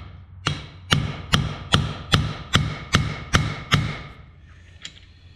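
Hammer blows on metal driving a new pilot bearing into its bore: about nine evenly spaced ringing strikes, roughly two and a half a second, stopping about four seconds in.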